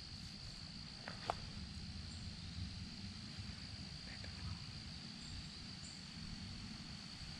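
Insects, likely crickets, trilling steadily as one continuous high-pitched tone, over a low rumble. Two light clicks a little over a second in.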